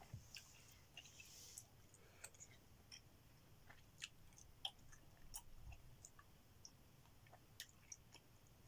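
Faint, irregular wet clicks and smacks of a person chewing gum with the mouth partly open.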